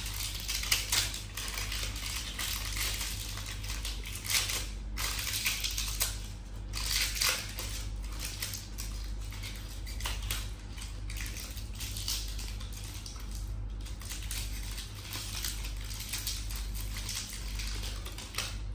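Plastic wrapping on a pack of battery cells crinkling and tearing as it is picked and peeled open by hand, in a long run of irregular crackles, over a steady low hum.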